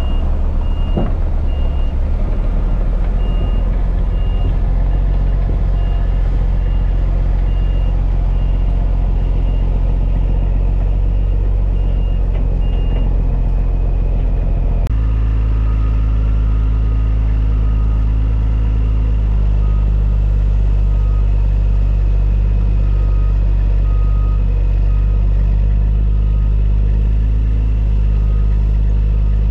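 Diesel engine of a tri-axle dump truck running steadily, while a backup alarm beeps at an even pace. About halfway through the sound changes abruptly, and a lower-pitched backup alarm beeps more faintly over the engine.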